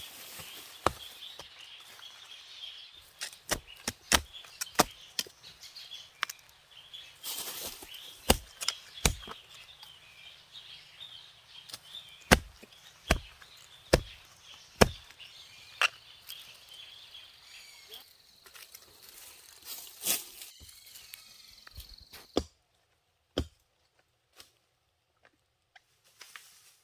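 Repeated sharp chopping strikes from a blade cutting plant stalks, irregular and at times under a second apart. The strikes stop about three-quarters of the way through, leaving only a few isolated knocks.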